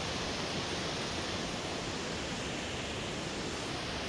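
Steady, even rushing of a rocky mountain river flowing beneath a suspension bridge.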